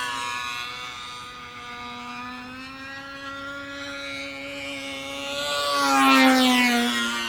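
A toy's small electric motor buzzing steadily as the toy circles past, swelling as it comes close about six seconds in and dropping in pitch as it goes by.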